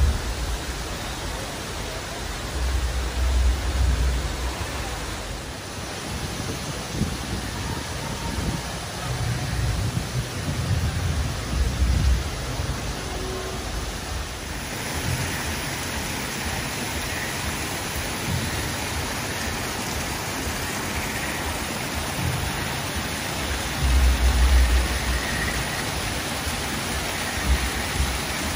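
Steady rushing of a waterfall splashing into a pool, growing brighter and fuller about halfway through. Low rumbles of wind buffet the microphone several times.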